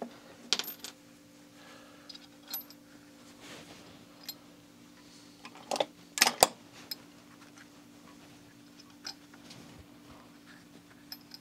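Scattered clicks and knocks of bolt hardware being handled while bolting a casting down to a cast mortar base, the loudest a sharp knock about six seconds in, over a steady low hum.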